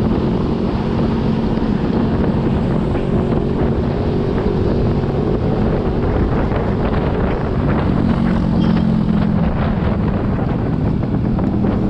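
Yamaha Aerox scooter's single-cylinder engine running hard at steady speed on a top-speed run through its aftermarket RS8 V3 CVT pulley set, with wind buffeting the microphone. The engine note dips slightly about eight seconds in, then picks up again.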